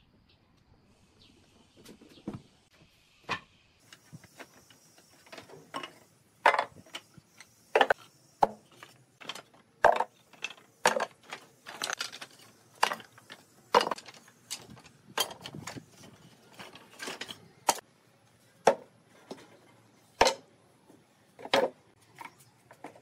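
Wooden offcuts and strips clacking together as they are pulled from a scrap pile and dropped into a wooden wheelbarrow: a string of irregular sharp knocks, faint at first and louder from about five seconds in, roughly one or two a second.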